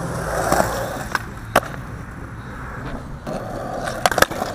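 Skateboard wheels rolling over rough concrete, with a few single clicks. About four seconds in, a quick run of sharp clacks as the board is popped into a flip trick and slaps back down on the concrete.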